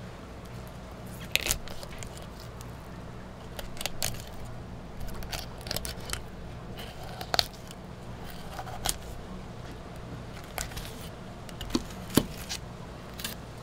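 Dexter 6-inch flexible fillet knife cutting through a mutton snapper, giving irregular crackling clicks and scrapes as it works through the fish.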